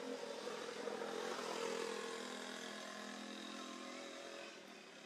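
A motor vehicle engine passing by, growing louder to its peak about two seconds in and then fading.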